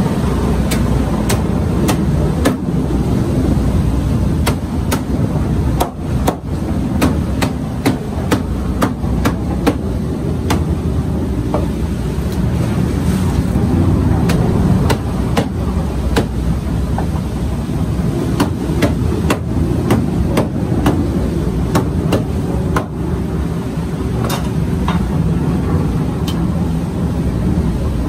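Meat cleaver chopping yellowfin tuna on a wooden deck: repeated sharp knocks at an uneven pace. A steady low rumble runs underneath.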